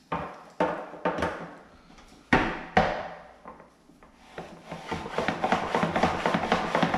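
Plastic boilie rolling table handled: its top plate clacks against the base in several sharp knocks, the loudest two between two and three seconds in. From about four and a half seconds the top is slid quickly back and forth, a fast rhythmic rubbing rattle as the bait paste is rolled into balls.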